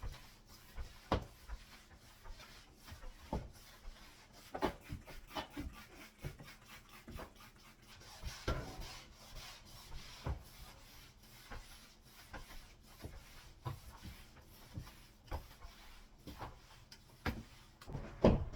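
Cleaning strokes rubbing across a laminate wood-look floor, with irregular light knocks and a longer scrubbing rub about eight seconds in.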